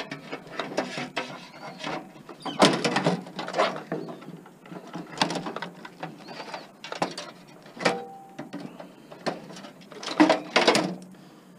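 Clattering and knocking of metal computer parts and casings being handled and pulled apart, in irregular bursts of sharp clicks. A bird chirps faintly a few times.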